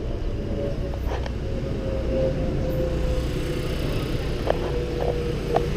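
Street and traffic noise heard from a moving cycle rickshaw: a steady low rumble, with a steady hum through the middle and a few light clicks near the end.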